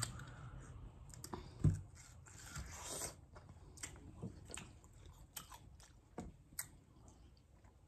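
Close-up chewing and biting of fresh juicy fruit: quiet wet mouth sounds with scattered soft crunches and clicks at irregular intervals.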